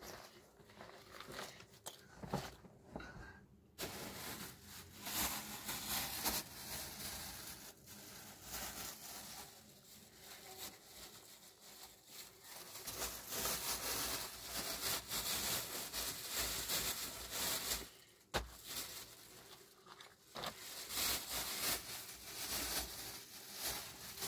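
Dry brush material rustling and crackling as it is handled, in long dense stretches with two short breaks near the end.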